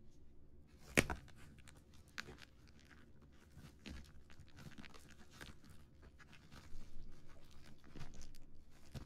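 Plastic-wrapped cardboard box of a kitchen herb planter kit being picked up and handled, its film crinkling, with scattered small taps and scratches. A single sharp knock about a second in is the loudest sound.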